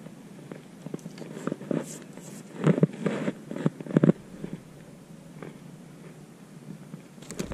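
Handling sounds of hands unhooking a small yellow bass from a drop shot rig: light rustles and scattered sharp clicks and knocks, busiest around three to four seconds in.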